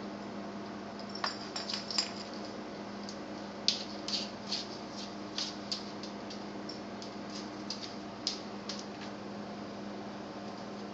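Irregular light clicks and taps of a dog's claws on a tile floor as it scrambles up and paws at a cockroach, coming in small clusters from about a second in and stopping near the end, over a steady low hum.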